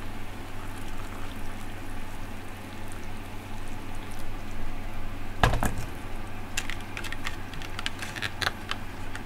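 Hot water poured from a gooseneck kettle into a paper instant-noodle cup, a steady trickling splash. About five and a half seconds in there is a single knock, then a quick run of crinkling clicks as the paper lid is folded shut and pressed down under a small plastic figure.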